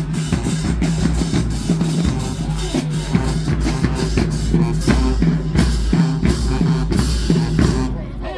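Loud music with a heavy bass line and a steady drum beat, easing off near the end.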